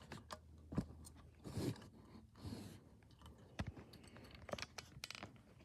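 Faint scattered clicks and knocks with two short scraping sounds: a fire alarm pull station being handled, its handle and cover worked by hand.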